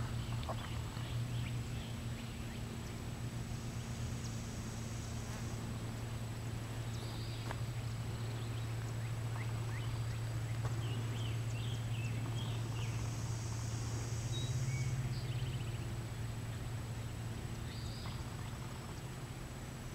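Outdoor forest ambience under a steady low hum: scattered bird chirps, and high insect buzzing that swells twice and fades.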